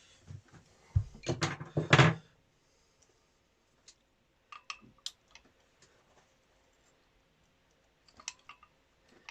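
Metal hand tools knocking and clinking against the engine: a burst of clattering handling about a second in, then scattered single clicks and taps.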